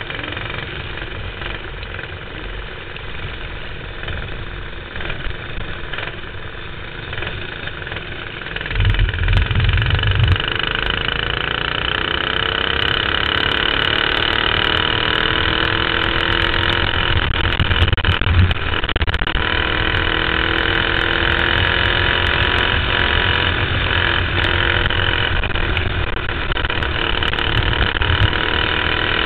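Racing kart engine heard from onboard during a dirt-track race, steady and fairly quiet at first. About nine seconds in it gets louder with a low thump, and its pitch climbs over the next several seconds as the kart accelerates, then stays high.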